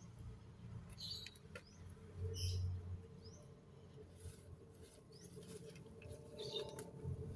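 A bird giving short, high squeaky chirps about once a second, with a few faint clicks among them.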